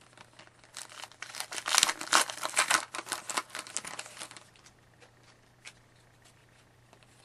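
Foil wrapper of a hockey card pack being torn open and crinkled for a couple of seconds, followed by a few light clicks of cards being handled.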